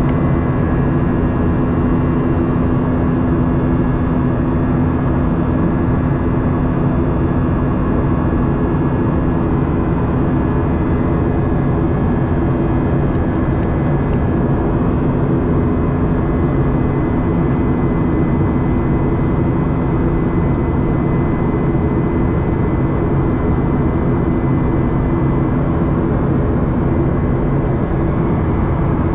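Steady cabin noise of a Boeing 737-800 with its CFM56-7B engines running at constant thrust: an even rushing drone with a steady low hum and a faint high whine on top.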